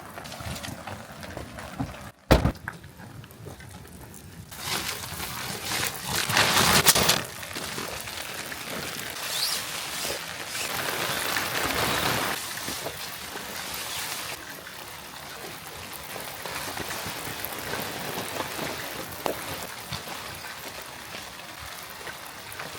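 Heavy rain falling in a steady hiss, swelling louder for a few seconds at a time, with a brief drop-out and a sharp click about two seconds in.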